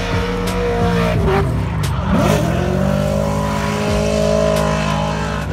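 Drift car's engine held at high revs as it slides around the track, its pitch dipping and then climbing again about two seconds in.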